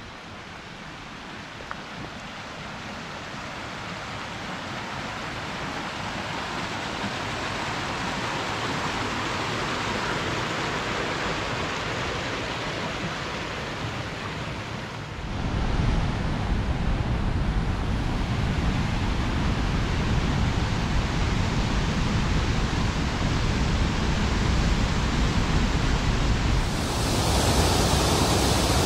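Steady rush of Frying Pan Creek, a glacier-fed mountain creek, growing gradually louder, with a jump in deep rumble about halfway through. Near the end it changes abruptly to a closer, louder rush of the creek cascading over rocks.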